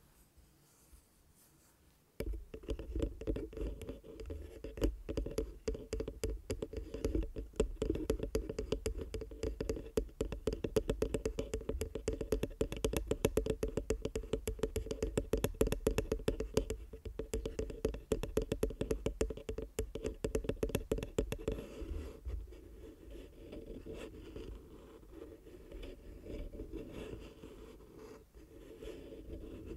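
Fingers scratching rapidly on the body and grille of a small Rode USB desktop microphone, picked up as close contact noise with a handling rumble. It starts about two seconds in and turns lighter and quieter about two-thirds of the way through.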